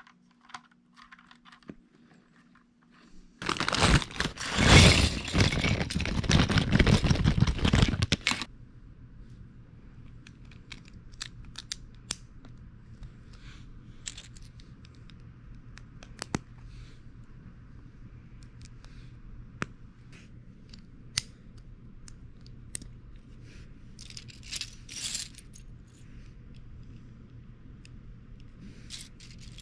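LEGO bricks being handled and snapped together by hand. A few seconds in there is a loud rustling, rattling clatter of loose plastic pieces lasting about five seconds, then scattered light clicks of bricks pressing together.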